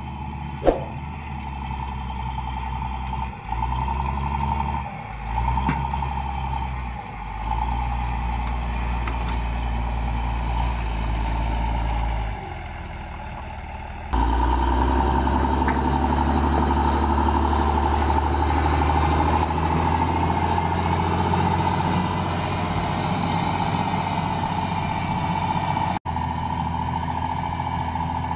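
LiuGong 414 motor grader's diesel engine running steadily as it works, its level dipping and swelling several times in the first half. There is one sharp click about a second in.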